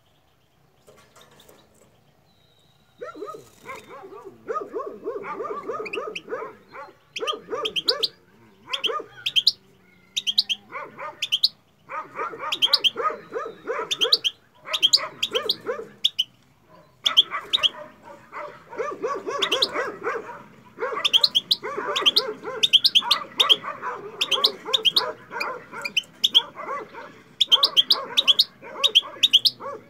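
Caged European goldfinch singing: long bouts of fast twittering and chirping that start about three seconds in and run on with short pauses.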